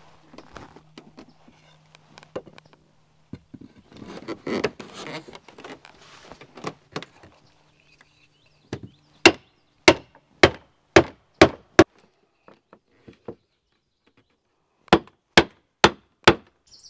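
Wooden stakes being hammered into the ground to hold the bark hull of a birch bark canoe in shape. First comes rustling and handling of wood with scattered small knocks, then a run of six sharp knocks about two a second, a pause, and four more knocks near the end.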